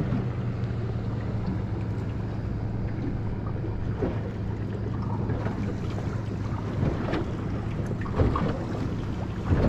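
A boat's motor runs at a steady low hum, with wind buffeting the microphone and a couple of knocks near the end.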